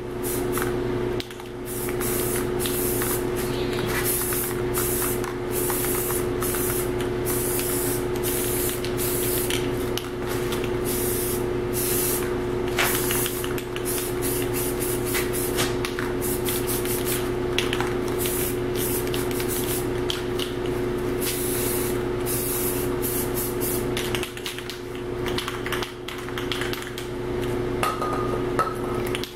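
Aerosol spray-paint can hissing in many short bursts as a first coat is sprayed onto a rifle, the bursts thinning out near the end. A steady hum runs underneath.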